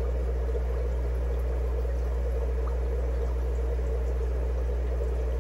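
Steady low hum with water bubbling from air-driven sponge filters in rows of aquarium tanks.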